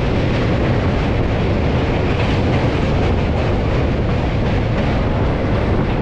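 Passenger train running on the rails: a loud, steady rumble of the moving coach.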